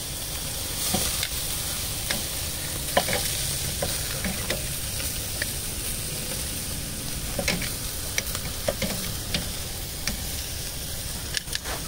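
Lamb chops sizzling on the grate of a charcoal kettle grill: a steady frying hiss with scattered sharp pops and clicks throughout.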